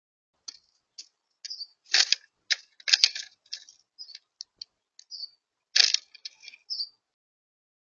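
Irregular taps and clicks on a bird feeder, like beaks and feet striking it as birds feed, with three louder knocks about two, three and six seconds in.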